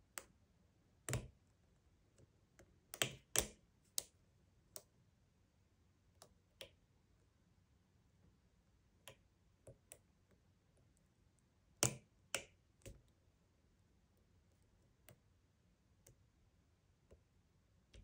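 Irregular sharp metallic clicks of a lock pick and tension tool working the pin stack of an ISEO 5-pin euro cylinder, which is fitted with spool pins, during single pin picking. Most clicks are faint, and a few louder clicks come in small clusters about a second in, around three seconds in and near twelve seconds in.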